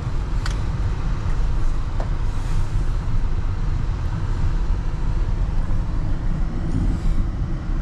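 Car cabin noise while driving slowly: a steady low engine and tyre rumble, with a light click about half a second in.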